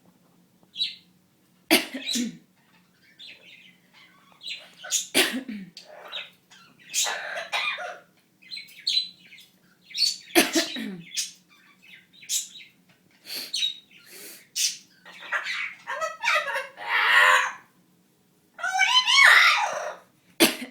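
Amazon parrot mimicking human sniffles and coughs in a series of short sharp bursts and calls, an imitation of a sick person rather than a sign of illness. Near the end it talks in a human-like voice with a drawn-out 'baaad'.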